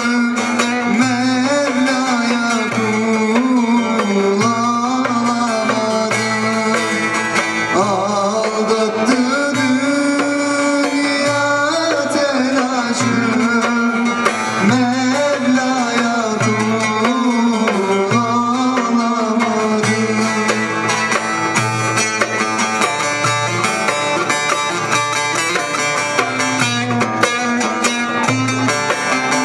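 Live Turkish ilahi: a male voice singing through a microphone, accompanied by a bağlama (long-necked saz) and a darbuka hand drum keeping a steady rhythm.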